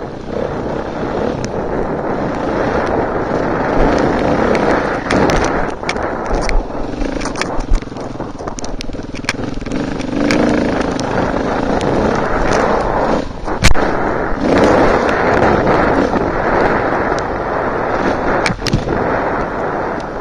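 Off-road enduro motorcycle engine running hard on a rough dirt trail, heard from a camera mounted on the bike, with a string of sharp knocks and clatter from the ride over rough ground; the loudest knock comes about two-thirds of the way through.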